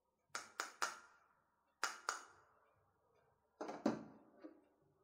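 Quiet, light clinks of a small ceramic bowl tapped against a stainless steel mesh sieve to empty cornstarch into it. The clinks come in small groups: three in the first second, two about two seconds in, and a few more near the end.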